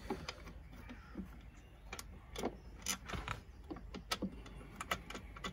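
Scattered light metallic clicks and small knocks at uneven intervals as nuts are handled and started by hand onto the mounting bolts of an airbag control module.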